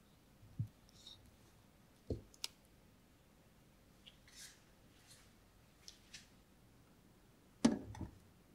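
A few light knocks and clicks of a sheet-metal baking tray being handled. Near the end the tray is set down on a wire cooling rack with a short double clatter, the loudest sound.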